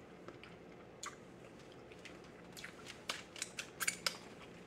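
Close-up eating mouth sounds: chewing and wet smacks as fingers are licked clean, with a quick run of sharp smacks in the last couple of seconds, the loudest near the end.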